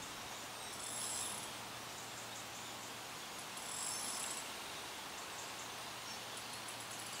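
Fishing reel being wound in short, high-pitched whirring bursts with fine ticks, three times.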